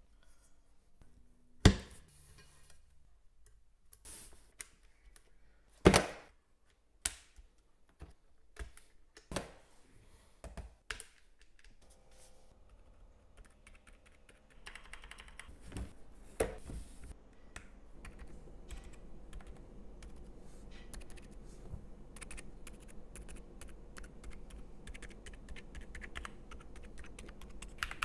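A few separate sharp clicks and snaps while a mechanical keyboard is being assembled, then, from about halfway, fast continuous typing on the Monsgeek M2 with its Akko Penguin silent switches: a dense run of soft, muted keystrokes.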